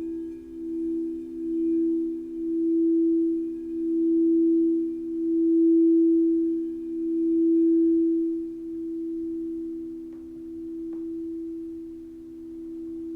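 Crystal singing bowls sustaining two steady pure tones, the sound pulsing in slow waves that swell to a peak midway and then fade. Two faint ticks sound near the end.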